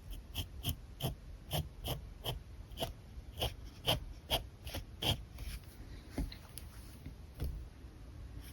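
Alcohol marker nib making quick, short strokes on paper, about three a second, thinning out to a few scattered strokes after about five seconds.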